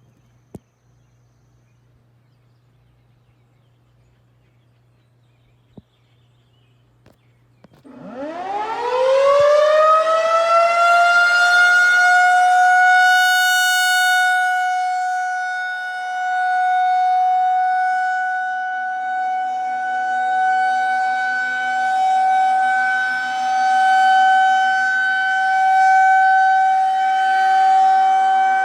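Outdoor tornado warning siren sounding for a scheduled test: after about eight seconds of quiet it winds up, its pitch rising over a few seconds to a steady high tone. The tone then holds, swelling and fading in loudness about every two seconds.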